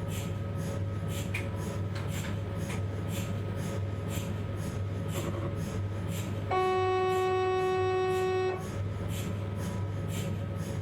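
Philips 1.5 T MRI scanner: a steady low hum with soft regular ticking. About two-thirds of the way in, a loud steady buzzing tone with overtones sounds for about two seconds, then cuts off and the ticking goes on.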